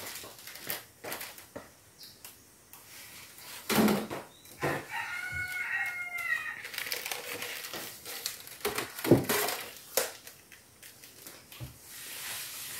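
A rooster crows once, for a little over a second, about five seconds in. There are a few knocks of jars and objects being handled on a wooden shelf.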